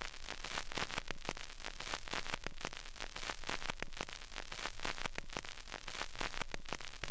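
Crackling static: a steady hiss packed with many irregular clicks and pops.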